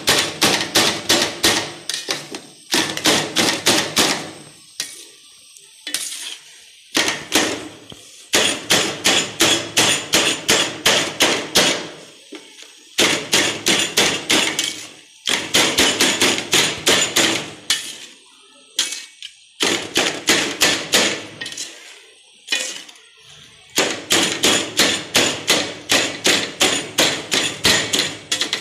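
Knife blade chopping cooked chicken in a steel pan, striking the metal in quick runs of about five strokes a second with short pauses between runs. The chicken is being chopped fine, shawarma-shop style.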